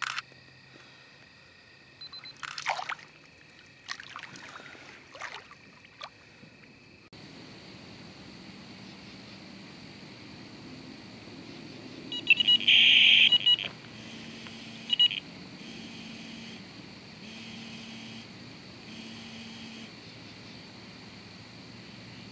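Electronic carp bite alarm on a rod pod sounding a continuous high tone for about a second, the sign of a fish running with the line. A single short beep follows, then a slower series of tones about every second and a half.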